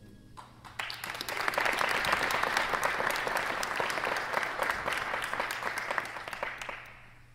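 Audience applauding, the clapping swelling about a second in and dying away near the end.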